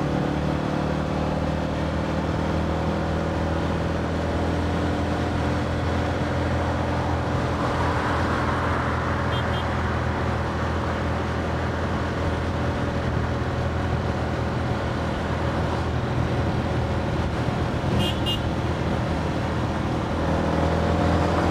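Small motor scooter engine running steadily while riding at cruising speed, mixed with wind and tyre noise. The engine note rises near the end as it speeds up.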